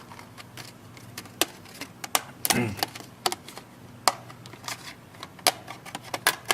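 Irregular sharp plastic clicks and snaps from prying the Samsung Galaxy Tab 3 tablet's plastic back housing and bezel loose, its retaining clips releasing one after another.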